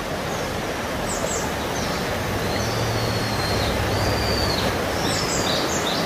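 Steady rush of a fast-flowing river, with a bird calling over it: short high chirps about a second in, two long high whistles in the middle, and more chirps near the end.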